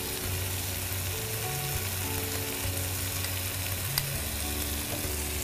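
Chopped yellow capsicum and chicken sizzling steadily in a nonstick frying pan as grated cheese is added and stirred in with a wooden spatula. Soft background music with long held notes plays under it.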